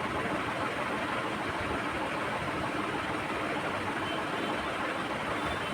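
Steady background noise: an even hiss with a low rumble underneath, unchanging throughout.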